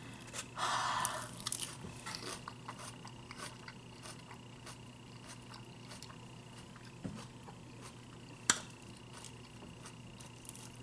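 Close-up chewing of crisp salad lettuce, with a crunchy bite about half a second in. Small clicks and rustles come from a plastic fork working in a plastic salad container, and one sharp click a little past the middle is the loudest sound.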